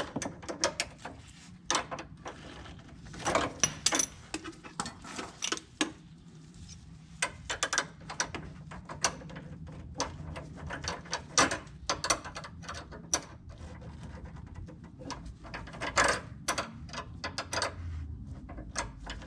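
Irregular metallic clicks and clanks of hand tools being worked and handled, scattered unevenly over several seconds.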